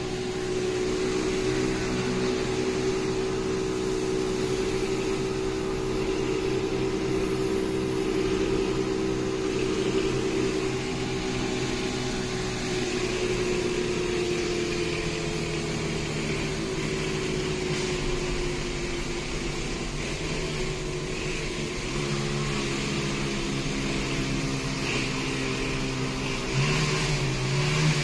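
Steady hum inside a moving car's cabin, with road noise and a fan-like drone. The car's engine is idling while the car is towed at about 40 km/h.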